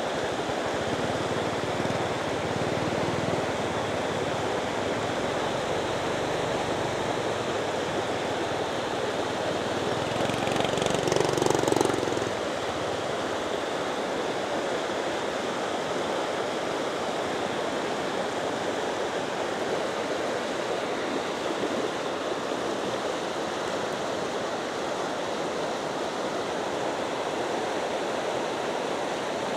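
Floodwater rushing in a steady flow, with a louder passing swell peaking about eleven seconds in.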